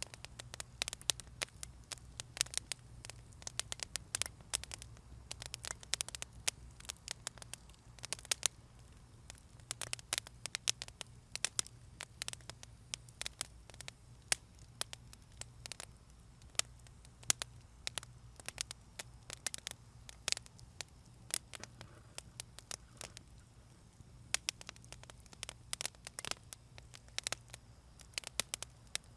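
Wood fire crackling: irregular sharp pops and snaps scattered throughout, over a low steady rumble of the burning.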